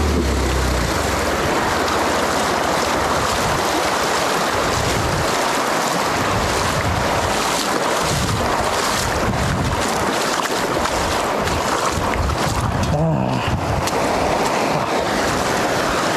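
Steady rush of river water and splashing as a motorcycle's front wheel wades through a shallow, rocky river, with wind rumbling on the microphone.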